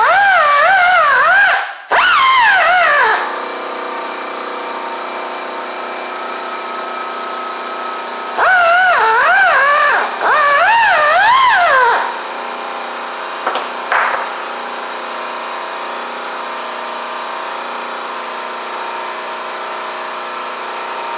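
Handheld grinder cutting metal in several bursts, its pitch wavering up and down as it is pressed into the work and falling away as it winds down after each burst. A steady hum runs under it, and there are two short knocks near the end of the second burst.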